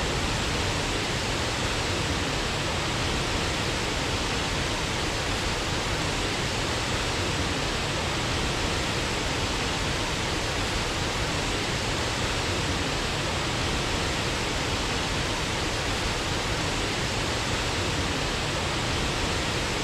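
Waterfall, water falling and splashing in a steady, even rush.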